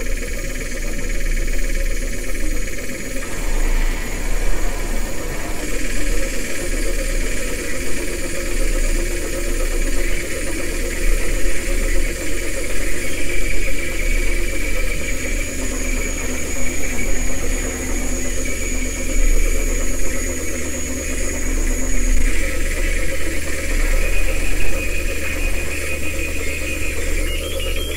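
Experimental noise-drone music: a dense, engine-like rumble over a deep steady hum, with thin high tones that fade in and out.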